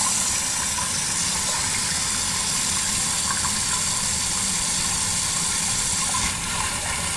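Garden hose running water into an old broken clay drain pipe: a steady rush of pouring water, testing whether the pipe still drains away. The high hiss eases slightly about six seconds in.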